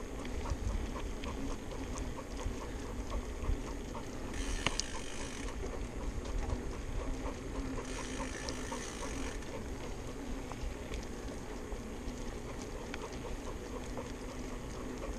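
Trance Advanced SX mountain bike rolling along a paved path, with wind rumbling on the camera microphone and a steady light ticking. Two brief higher hisses come about four and eight seconds in.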